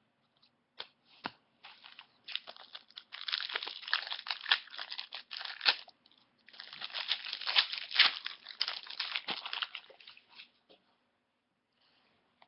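Wrapper of a hockey trading-card pack being torn open and crumpled, heard as two long bursts of crinkling and crackling with a few scattered clicks between them.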